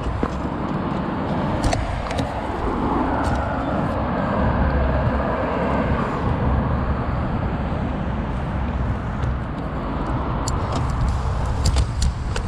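Road traffic: a car passing on the adjacent road, its noise swelling and fading over a few seconds, over a steady low traffic rumble.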